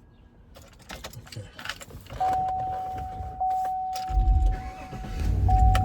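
Jangling and clicking, like keys being handled, then an electronic chime tone that sounds again about every second, like a car's warning chime. A low rumble comes in about four seconds in.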